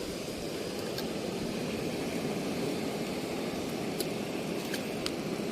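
Steady wash of ocean surf on a rocky shore, with a few faint sharp clicks scattered through it.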